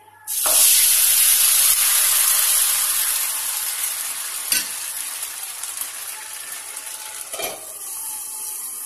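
Thin rava dosa batter poured into a hot oiled nonstick frying pan, setting off a loud sizzle that starts suddenly and slowly dies down. A knock comes about halfway through, and another about seven and a half seconds in as the lid goes on the pan, after which the sizzle goes on more softly.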